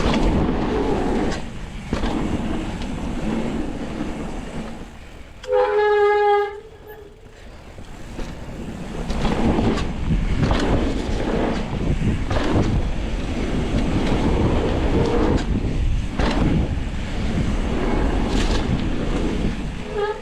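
Mountain bike riding down a dirt jump trail: the tyres run over the dirt, the bike rattles and knocks over bumps and landings, and wind rushes over the microphone. About five and a half seconds in, a loud steady-pitched squeal lasts about a second, while the riding noise drops.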